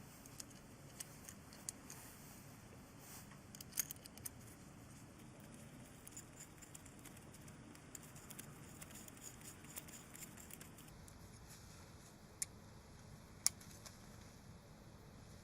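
Faint, scattered clicks and light metallic clinks from handling a small pneumatic grinder while its abrasive wheel is being changed. A few sharper clicks stand out about four seconds in and near the end.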